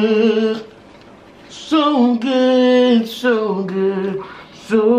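A man singing long, drawn-out notes with a wavering pitch, breaking off for about a second near the start and briefly again near the end.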